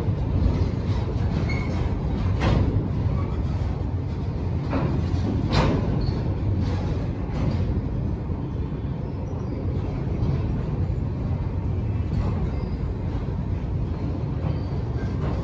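Freight train rolling by: a steady heavy rumble from the wagons, with several sharp knocks from the wheels, most of them in the first half.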